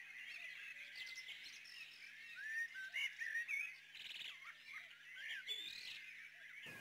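Birds chirping faintly: a scatter of short chirps rising and falling in pitch, over a faint steady low hum.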